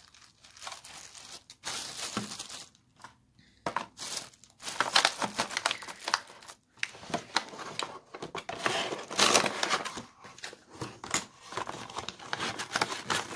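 Packaging being handled, crinkling and rustling in irregular bursts, louder and busier from about four seconds in.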